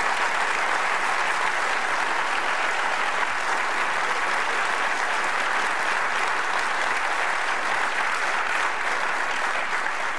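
Audience applauding: a steady, dense round of clapping.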